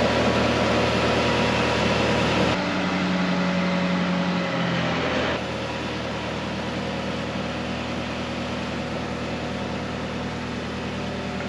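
Forklift engine running steadily. Its note changes for a few seconds from about two and a half seconds in, with an added steady hum, then it settles a little quieter.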